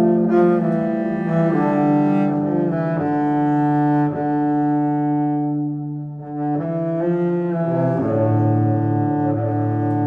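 Background music: slow, held notes that change about once a second, with a brief dip in level about six seconds in.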